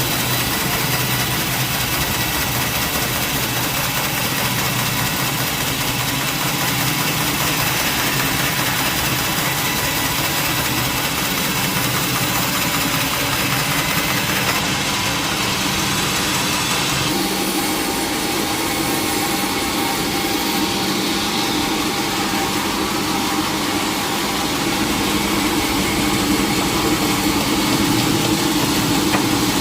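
Sawmill machinery running steadily, with a shift in its sound about 17 seconds in.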